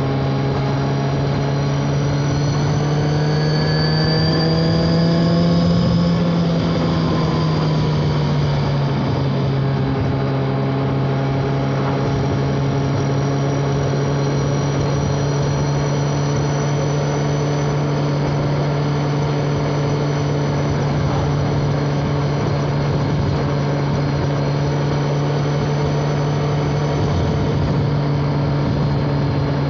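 BMW K1200R's inline-four engine running through its stock exhaust under way. The engine note climbs gently for the first few seconds, drops about six seconds in, then holds a steady cruising pitch.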